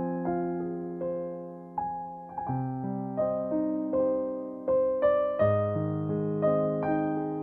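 Background piano music: slow single notes over sustained chords, each note struck and fading.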